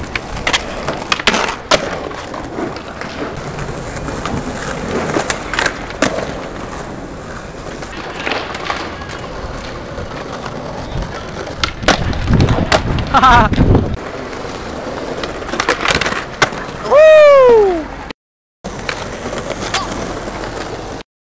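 Skateboard wheels rolling over stone paving, with sharp clacks of the board popping and landing on tricks. Near the end a loud pitched cry falls in pitch over about a second.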